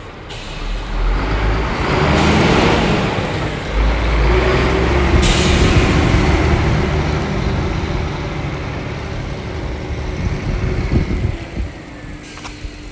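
2011 Scania G420 tractor unit's six-cylinder diesel engine running as the truck drives past and away, with a loud air hiss from about two seconds in that cuts off suddenly about five seconds in. The engine sound fades near the end as the truck moves off.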